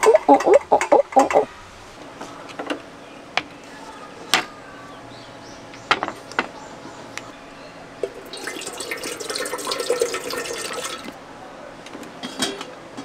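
Liquid being poured for about three seconds, starting about eight seconds in, after a few scattered light clicks and knocks.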